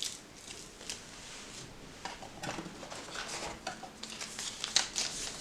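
Small items being handled: scattered light clicks, then denser rustling and scraping from about two seconds in.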